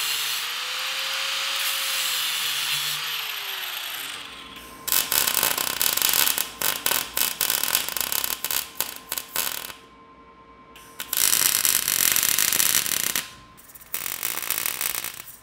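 Angle grinder cutting steel bar, its whine dropping in pitch as the disc bites in. After about five seconds it gives way to a wire-feed welder crackling as it runs three short weld beads, with brief pauses between them.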